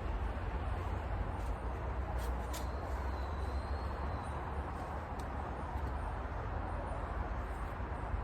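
Steady outdoor background noise with a low rumble, a few faint clicks, and a faint high thin tone a few seconds in.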